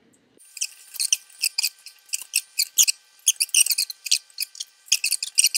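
Close-up eating sounds from spooning and eating a Dairy Queen Blizzard: a fast run of small squeaky, wet clicks, several a second, starting about half a second in.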